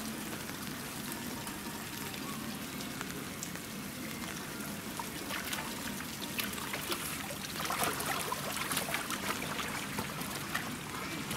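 Steady trickling and pouring of water in a penguin pool, with a run of small crisp splashes and drips in the second half, busiest a little past the middle.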